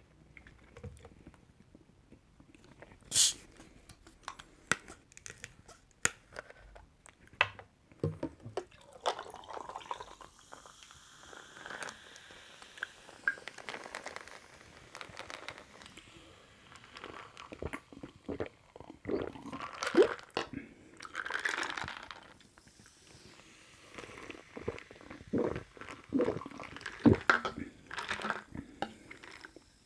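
A person drinking carbonated lemon tonic close to the microphone. The sound is a run of sips, swallows and small mouth and handling clicks, with one loud short burst about three seconds in.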